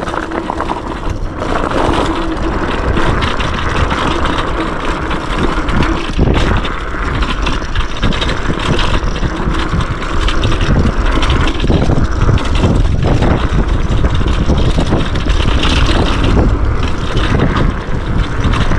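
Yume X11 electric scooter riding fast over a dirt trail: a steady loud rush of wind on the microphone and tyres rolling on the ground, with heavy low rumble and many small knocks and rattles from bumps.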